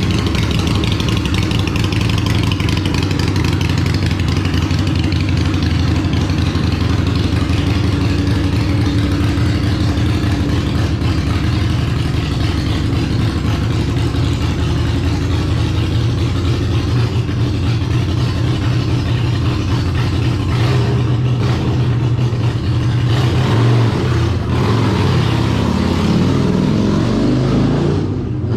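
Harley-Davidson Iron 883's air-cooled V-twin running steadily through a Vance & Hines Big Radius exhaust. Near the end the engine's pitch climbs and shifts as it is revved.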